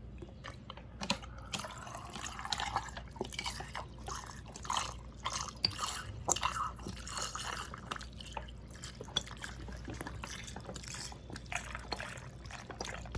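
Bottled water squirted from a plastic bottle into a cup, splashing and trickling in irregular spurts.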